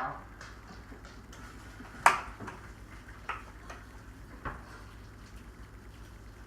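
A spoon scooping cooked onion and leek from a pan into a stock pot. A handful of sharp clinks and knocks of metal on cookware, the loudest about two seconds in, over a low steady hum.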